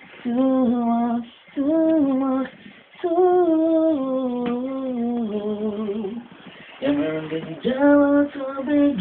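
A solo voice singing long held notes with wavering pitch, in four phrases separated by short pauses, with no instrumental backing.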